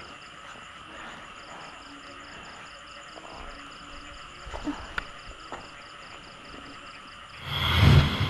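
Night insects, likely crickets, chirping in a steady high-pitched pulse of about four chirps a second, with a few faint clicks. A louder rushing sound swells in near the end.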